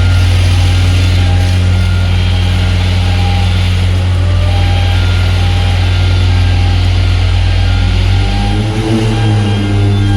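Heavy machinery running with a steady, deep hum and a few steady higher tones; the sound shifts about eight seconds in.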